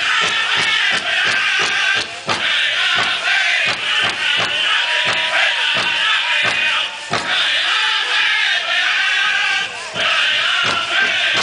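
Powwow drum group singing in high, strained voices over a steady, even beat on a big drum, with brief breaks in the singing between phrases. The metal cones of the dancers' jingle dresses rattle along with it.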